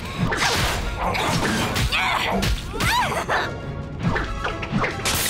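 Cartoon fight sound effects: whooshing baseball-bat swings, whacks and crashes, over dramatic action music.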